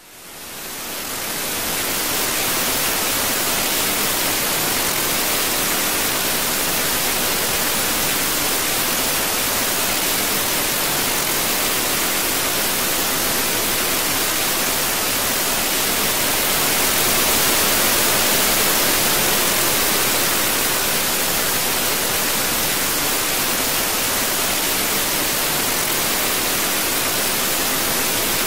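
Steady static hiss like white noise, fading in over the first couple of seconds and swelling slightly a little past the middle.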